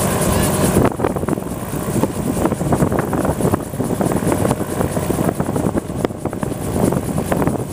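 Helicopter running nearby: a steady low hum, with uneven rough noise over it.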